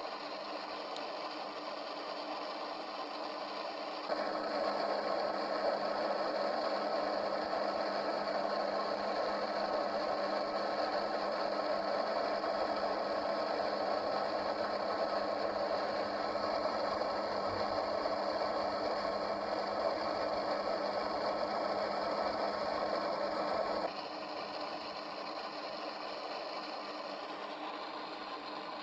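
Steady electronic hiss and hum from a ghost-hunting EVP (ЭГФ) noise device. It steps up louder about four seconds in and drops back about twenty seconds later.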